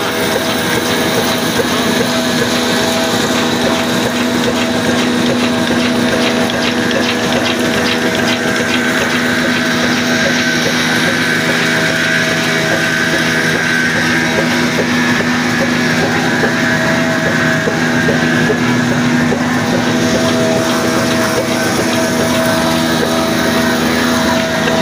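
Old heavy diesel engine running steadily and driving a belt-driven flour mill grinder, a continuous machine drone with a steady hum.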